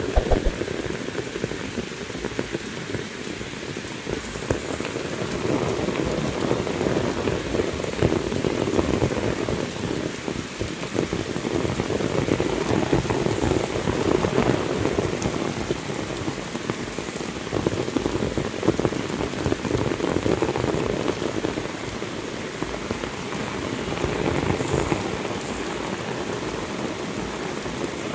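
Heavy rain falling steadily, with a dense patter of drops striking surfaces that swells and eases in strength.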